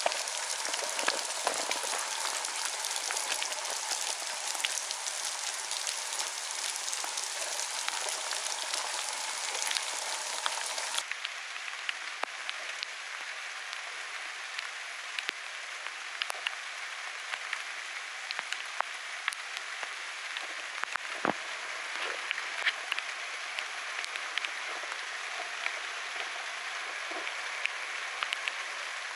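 Steady rain falling on grass and ground, a soft hiss full of small drop ticks. It turns thinner and a little quieter about eleven seconds in.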